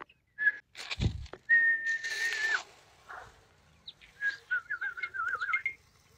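Clear whistled notes: one held note a little over a second long that dips at its end, then a wavering, warbling whistle about a second and a half long near the end. A low thump about a second in.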